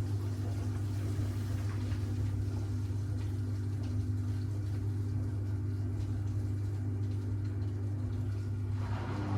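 Miele W1 Active WCA 030 washing machine running through its Easy-care 40°C programme with a steady low hum. Near the end, a higher rushing sound joins it as the machine changes phase.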